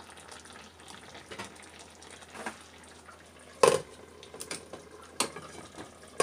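Chicken in tomato sauce faintly bubbling in a frying pan, broken by a sharp clatter as a plastic spatula is set down, then a few knocks and clinks as a glass lid is put on the pan near the end.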